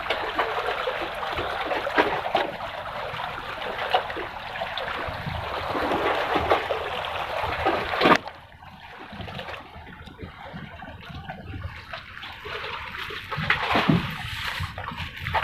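Water splashing and trickling, cutting off abruptly about eight seconds in and continuing more quietly after.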